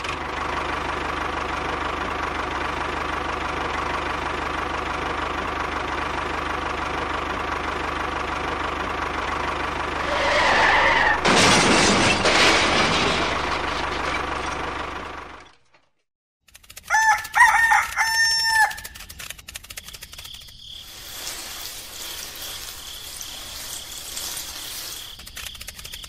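Small electric motor of a model tractor running with a steady whine, growing louder and rougher for a few seconds as its tine cultivator works the sand, then cutting off. After a short gap, a rooster crows in a few loud calls, followed by a faint hiss.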